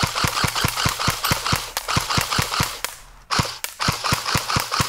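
Electric airsoft rifle (AEG) firing rapid semi-automatic shots, about five a second, each a sharp snap from its motor-driven gearbox. The shots break off briefly about three seconds in, then resume.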